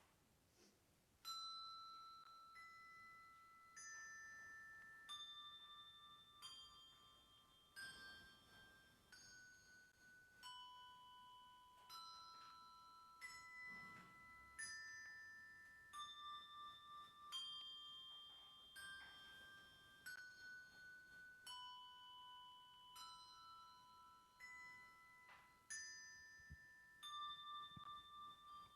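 A quiet, slow melody of single struck, bell-like notes, each one ringing on, played on tuned percussion of the glockenspiel or chime kind.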